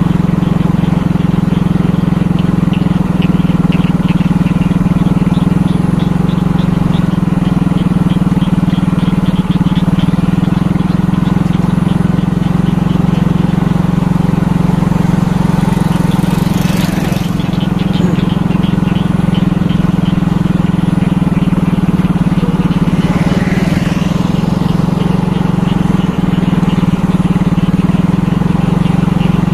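Small motorcycle engine running at a steady cruising speed, heard from the rider's seat, with wind and tyre noise on a rough asphalt lane. About halfway through, an oncoming motorcycle rises and fades as it passes, and a weaker pass follows a few seconds later.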